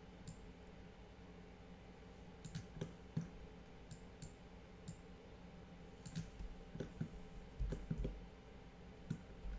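Irregular computer mouse clicks, about a dozen spread through the stretch, over a faint steady hum.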